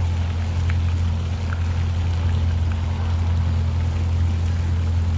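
Miniature train locomotive's engine running with a steady low drone.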